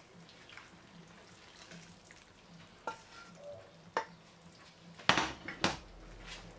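Boiling-hot tomato sauce hissing and bubbling faintly over raw green peppers in a wide metal pan, with a few sharp clicks and two louder knocks about five seconds in.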